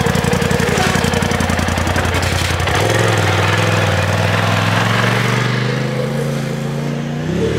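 Polaris RZR Turbo S side-by-side's turbocharged twin-cylinder engine running at low speed as it is driven off a trailer, with a steady pulsing note. About three seconds in, the deep pulsing drops away and the engine note climbs slowly in pitch as it pulls away.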